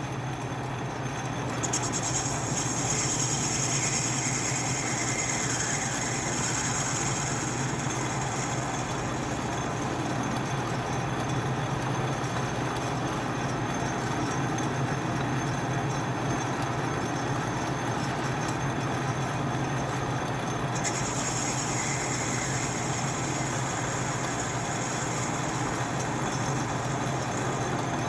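Atlas metal lathe running steadily with its motor hum, taking facing cuts on a 4140 steel steady-rest finger to shorten it by about 20 thou; a high hiss of the tool cutting comes in twice, for several seconds each.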